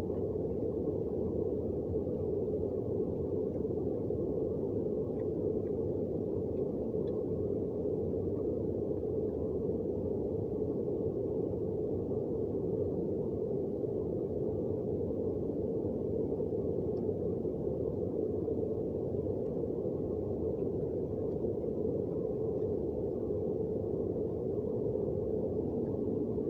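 Heavy rain pouring down, a steady, dull rush of noise without let-up.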